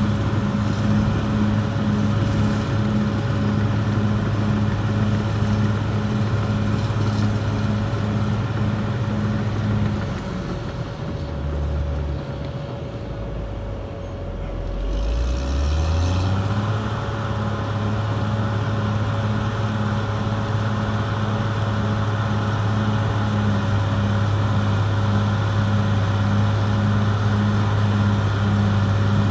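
Caterpillar D6R XL bulldozer's diesel engine running at working speed. About ten seconds in it drops to a lower speed and quietens, then revs back up about six seconds later and holds steady, with a steady higher whine throughout.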